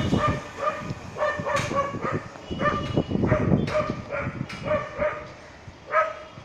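A dog barking over and over in short, high-pitched yelps, one or two a second. Beneath the first second or so, the low rumble of the departing train fades away.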